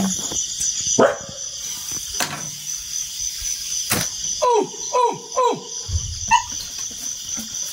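Dog barking three times in quick succession about halfway through, set on an elephant raiding the field. A steady chorus of crickets chirps throughout, and a few sharp clicks come earlier.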